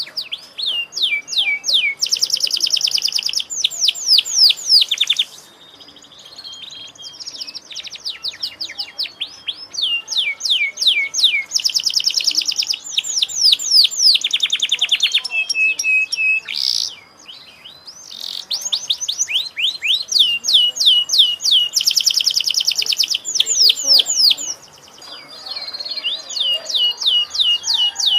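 Domestic canary in full song: long phrases of rapid repeated notes and rolling trills, with short breaks about 5, 17 and 25 seconds in.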